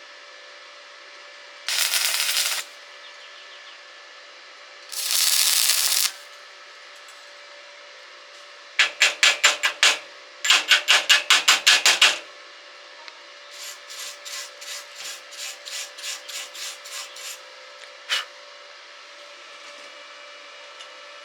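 Hand scraping or rasping against a workpiece: two longer scrapes, then runs of quick back-and-forth strokes about six a second, then softer strokes and a single click near the end. A steady faint hum runs underneath.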